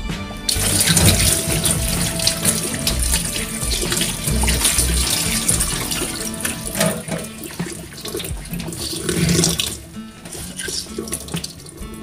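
Kitchen tap running into a stainless steel sink, water splashing over hands rinsing under the stream. The splashing drops off about ten seconds in.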